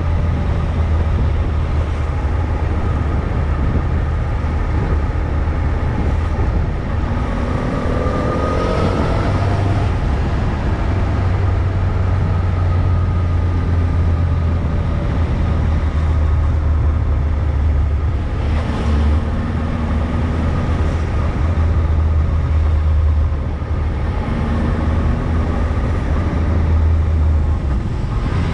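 Motorcycle engine running at low road speed, with wind and road noise over it; the engine note rises briefly about a third of the way in and again about two-thirds through.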